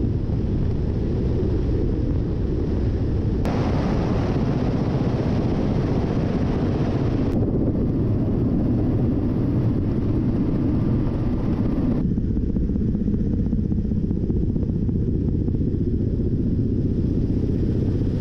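Ka-52 attack helicopter's coaxial rotors and twin turboshaft engines running in flight, a loud, steady drone with a fine rapid pulsing, heard close up from on board. The hiss over it changes abruptly three times, about three and a half, seven and twelve seconds in.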